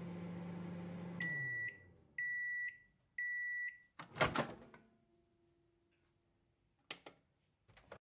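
Microwave oven running with a steady hum that winds down about a second in, then three long high beeps about a second apart signalling the end of cooking. A loud clunk follows, the door latch releasing as it opens, then a few faint clicks near the end.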